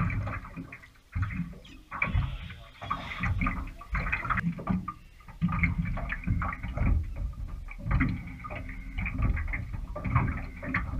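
Water slapping and splashing against a small boat's hull, in uneven surges with a low rumble under them.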